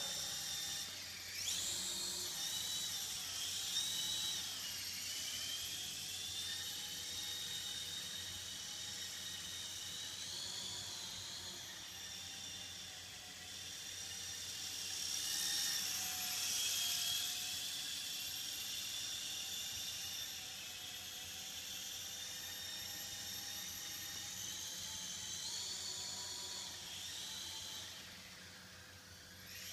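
Electric motors and contra-rotating rotors of a small radio-controlled coaxial model aircraft whining in flight. The pitch rises and falls with the throttle, and the sound dies away near the end.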